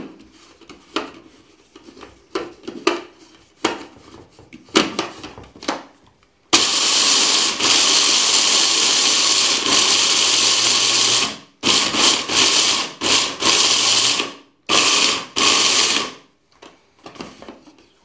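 Small electric chopper grinding dried maize kernels. First come clicks and knocks as the bowl and lid are handled. Then the motor runs for about five seconds, followed by a string of short pulses.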